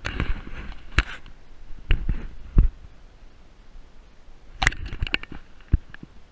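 Scattered sharp knocks and clicks with a few low thumps, several close together about four and a half seconds in.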